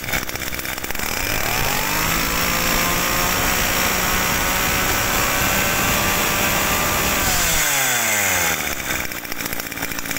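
Kawasaki TD24 two-stroke brush cutter engine throttled up from idle to high revs, held steady for about five seconds, then let fall back to idle near the end.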